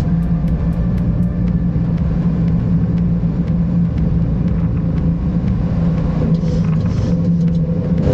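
Steady cockpit noise of a Boeing 737 in flight: a loud, even rumble of airflow and engines with a constant low hum. A quick run of faint ticks stops about a second in.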